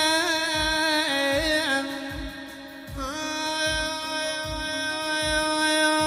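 Male voice singing an Iraqi mawwal in long held notes ornamented with quavering turns, easing off a little after two seconds before a new note swells in. Beneath it runs a soft low beat about once every 0.8 seconds.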